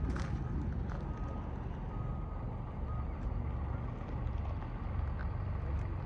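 Steady low rumble, with a faint thin tone that comes and goes.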